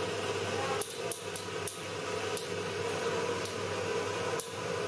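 Steady hum of a sewing workroom, with a scatter of light, irregular clicks and snips from fabric work.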